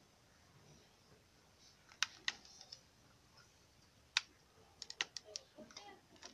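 Faint, sharp clicks and crackles while a soldering gun melts solder onto a spliced wire of a laptop charger cable: two clicks about two seconds in, one near four seconds, and a quick run of them around five seconds.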